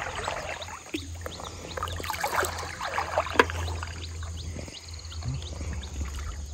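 Shallow river water babbling and splashing around feet and the legs of a camp table and chairs, with many short gurgling chirps over a steady low rumble.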